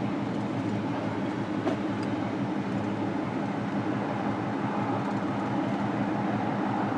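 A V6 engine idling steadily with a low, even hum. A random misfire (code P0300) has just been seen again on the scanner, and the mechanic feels only a slight shake from it.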